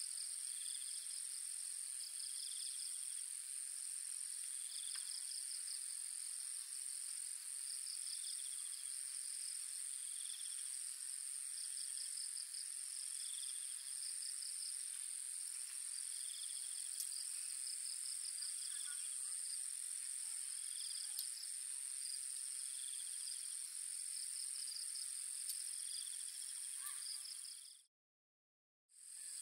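Evening chorus of insects: a steady high-pitched drone, with crickets trilling in short pulsed bursts that repeat about every second and a half and a softer chirp repeating alongside. It fades out briefly near the end.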